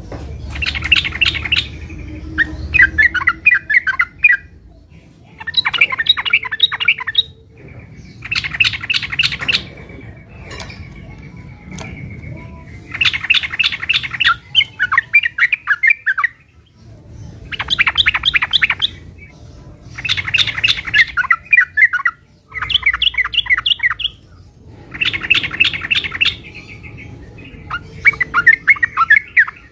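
Sooty-headed bulbul (trucukan) singing its energetic fighting-mode song: loud, repeated bursts of quick chattering notes, each a second or two long, with short pauses between.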